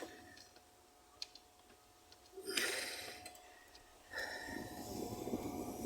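A man's heavy breathing while working: a short sharp exhale about two and a half seconds in, then a longer breath from about four seconds, with a few faint clicks about a second in.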